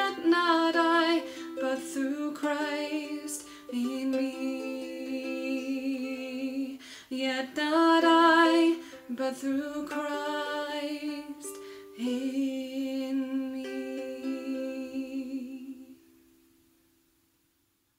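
A singer accompanied by ukulele, the voice held with vibrato over plucked chords; the song ends about sixteen seconds in.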